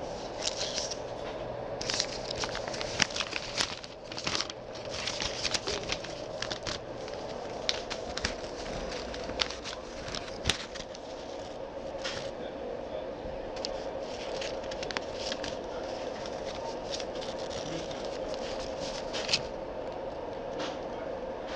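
Rustling and scattered crackling clicks of clothing and handling on a body-worn camera's microphone, over a steady hum.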